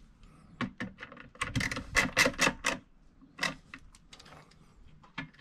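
Screwdriver driving the nylon hinge fasteners of a plastic RV toilet seat, giving a run of sharp plastic clicks that come thickest and loudest about one and a half to three seconds in.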